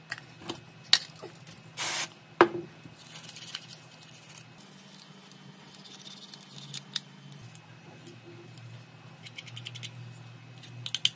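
Scattered small clicks and taps of handling work, with a short hiss about two seconds in and clusters of quick clicks near the end.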